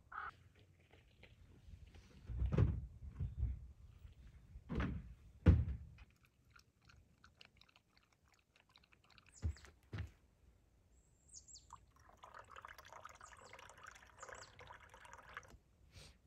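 A dog's mouth at a collapsible bowl held out by hand: quick small clicks of feeding, with a few louder thumps around them.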